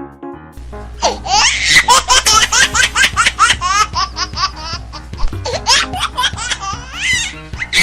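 High-pitched laughter in rapid, repeated ha-ha pulses, starting about a second in and fading near the end, over steady background music.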